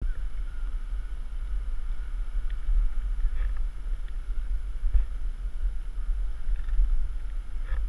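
Steady low rumble of dirt bike engines idling on the start line, mixed with wind noise on the helmet-camera microphone.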